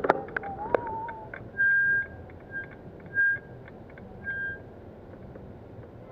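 Whistling: a wavering note about a second in, then four clear, steady, high notes of different lengths, over a low traffic hum. A few sharp clicks sound at the very start.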